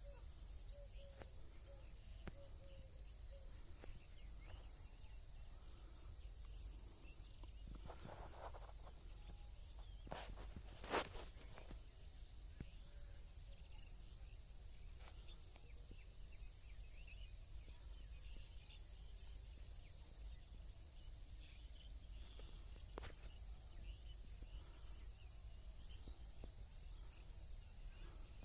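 Steady, high-pitched trilling of insects such as crickets, with scattered faint bird chirps. A single sharp click about eleven seconds in.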